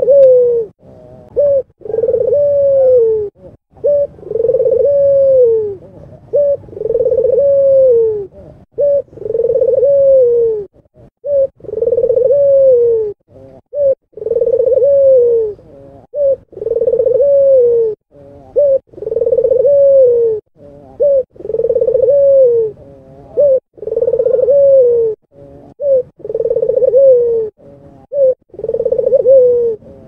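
Albino Barbary dove (puter) cooing over and over: each call is a short note followed by a long coo that falls in pitch, repeating about every two seconds.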